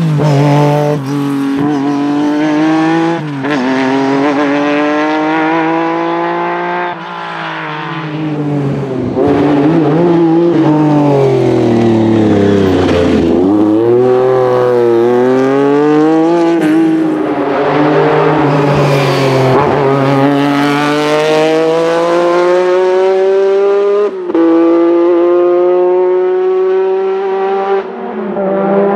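Lancia Stratos rally car's engine revving hard and shifting up through the gears several times. Its pitch drops off about halfway through as it slows, then climbs again through the gears.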